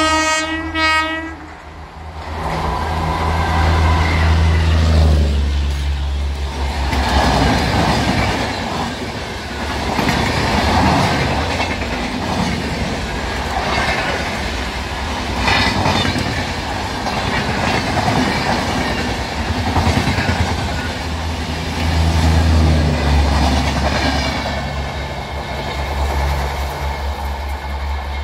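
WAP4 electric locomotive hauling the Humsafar Express sounds a short horn blast at the start, then runs past at about 100 km/h. It is followed by a long, loud rattle of the coaches' wheels, with a rhythmic clickety-clack over the rail joints. A low drone comes back near the end.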